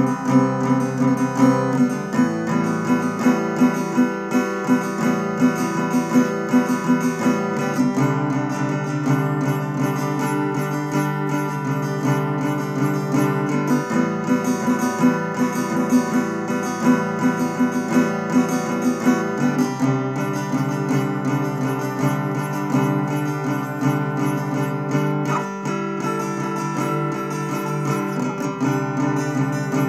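Solo acoustic guitar played in a quick, even picked pattern, the chord changing every few seconds.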